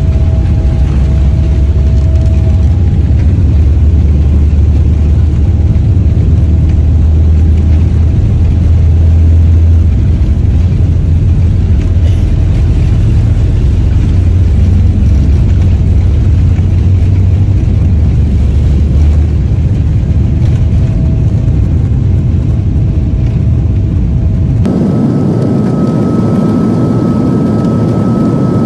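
Airliner cabin noise heard from a window seat while the jet taxis: a loud, steady low rumble. About 25 seconds in it changes abruptly to a brighter roar with a steady high whine.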